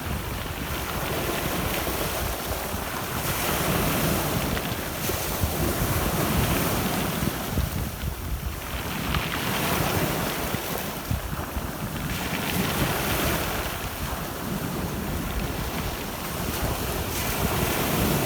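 Black Sea surf breaking and washing up the shore, swelling and ebbing every few seconds, with wind gusting on the microphone as a low rumble underneath.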